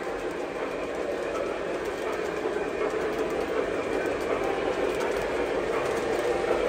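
Lionel O-gauge model train running along its track: a steady rolling rumble of wheels on rail with faint clicking.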